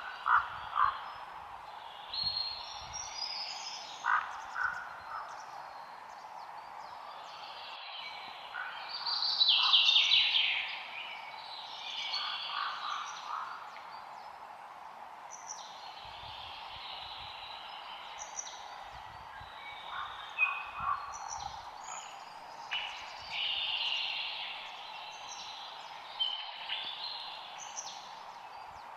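Several birds singing and calling over a steady background hiss, with short whistled phrases and chirps throughout; the loudest burst of song comes about a third of the way in.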